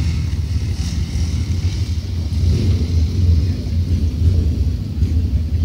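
Steady low rumble of wind buffeting the microphone, mixed with a motorcycle engine running on the dirt arena.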